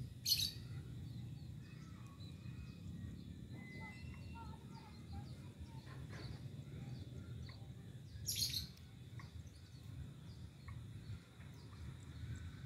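Small birds chirping and calling in short, high notes, with two louder brief high calls, one near the start and one about eight seconds in, over a steady low background rumble.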